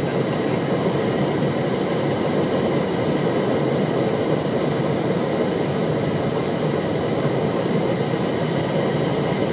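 Steady rushing cockpit noise of a Bombardier CRJ700 regional jet on final approach in landing configuration, flaps at 45, with a few faint steady high tones over it.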